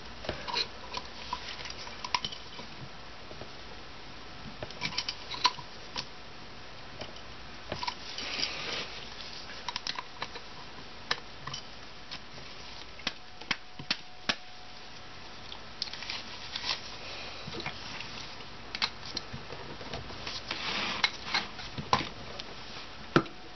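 A screwdriver and a bottle opener prying at a metal turbocharger part from two sides: scattered metal clicks and short scrapes, a few of them in quick clusters.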